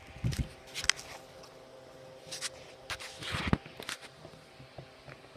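Handling noises: scattered clicks, taps and short rustles, bunched about a second in and again from about two and a half to four seconds in.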